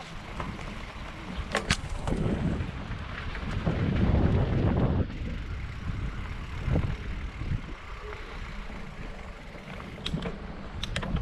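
Riding noise from a Specialized Levo electric mountain bike on a dirt trail: wind buffeting the microphone and the rumble of tyres over rough ground. A few sharp clicks and rattles from the bike over bumps come twice early on and twice near the end.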